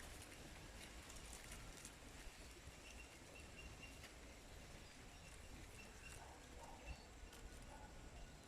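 Faint outdoor ambience with a few short, high, distant bird calls and occasional light ticks over a low rumble.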